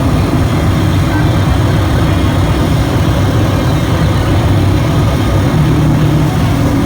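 Hardcore punk band playing live at full volume, the distorted guitars and bass a dense, unbroken wall of sound that is heaviest in the low end.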